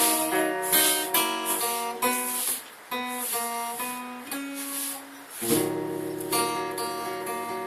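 Acoustic guitar playing the closing instrumental of a slow ballad: picked notes and strummed chords, with a fuller chord and low strings coming in about three-quarters of the way through.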